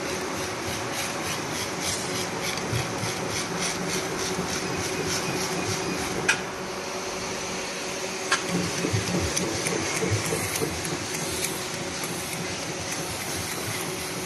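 Bubble wrap bag making machine running, a steady mechanical hum with a fast, even run of ticks for the first six seconds or so. Two sharp clicks come about six and eight seconds in, followed by a looser clatter.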